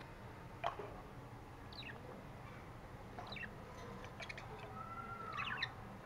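Caged budgerigars chirping: short, sharp chirps a second or so apart, the loudest about half a second in. Near the end comes a longer whistle that rises and then slides down.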